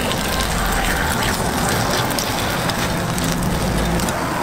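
Batter sizzling on a hot takoyaki ball griddle: a steady, dense hiss full of fine crackles, over a low rumble.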